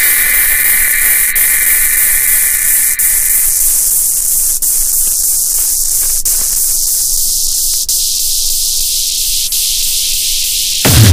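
Hardcore techno breakdown made of loud, steady white-noise hiss, with a held synth tone fading out in the first few seconds and a faint click about every second and a half. Heavy bass comes back in right at the end.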